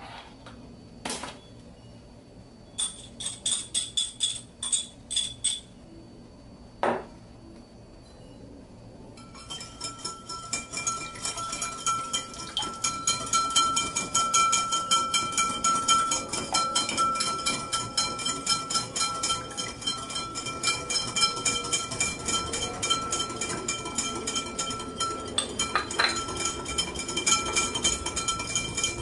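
A whisk beating a mayonnaise-based Italian dressing in a bowl. At first there are a few separate clinks and a short burst of them; from about nine seconds in comes fast, continuous rhythmic clinking against the bowl, with a steady ring under it.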